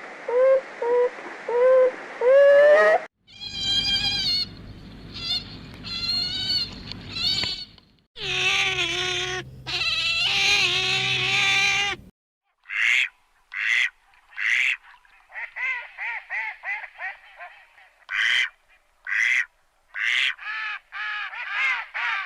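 Calls of several animals, played as separate short recordings one after another, cut abruptly about three, eight and twelve seconds in. The last stretch is a run of short, repeated calls, several a second.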